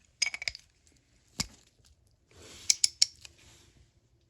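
Small steel parts of a disassembled ratchet, its pawl switch and gear, clicking and scraping as they are handled: a few quick light clicks, one sharp click about a second and a half in, then a short scrape with three sharp clicks near the end.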